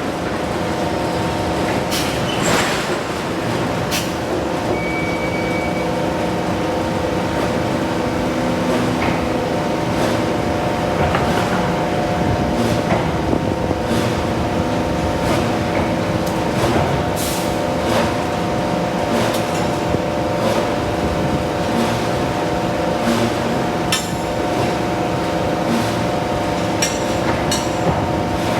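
Forge shop machinery running with a steady multi-tone hum, with a scattering of sharp metallic clanks and knocks, a few seconds apart at most.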